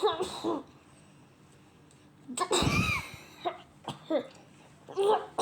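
A series of coughs, about five short bouts, the loudest about two and a half seconds in.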